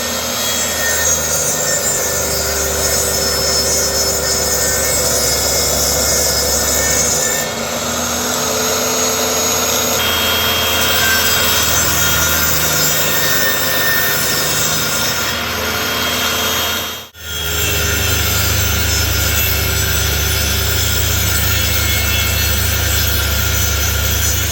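Power tools cutting and working wood in a run of short clips, the steady tool noise changing abruptly at each cut and breaking off sharply once, about two thirds of the way through.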